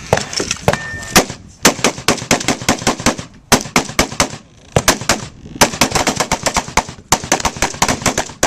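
Rapid rifle fire from several shooters during a room-clearing drill: quick strings of shots, many per second, broken by brief pauses of under half a second.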